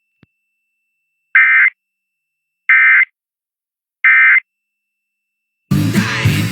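Emergency Alert System end-of-message (EOM) data tones: three short, identical raspy digital bursts about a second apart, marking the close of a Required Monthly Test. Near the end the audio cuts abruptly to a radio broadcast with speech and music.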